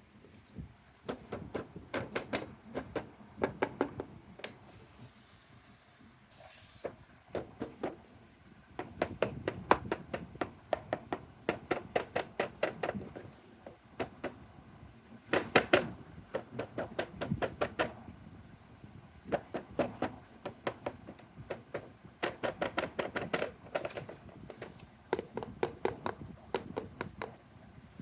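Toy cars and their packaging being handled: runs of quick clicks and light knocks, several in a row, coming in bursts with short pauses between.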